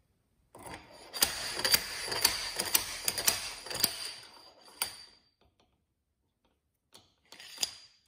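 Steel slide hammer being worked: about six sharp strikes, roughly two a second, as its weight is slammed against the stop to yank the vibration-damper retainer out of the motorcycle handlebar, with a scraping rattle between strikes. One more strike follows, then a few light clicks near the end as the tool is handled.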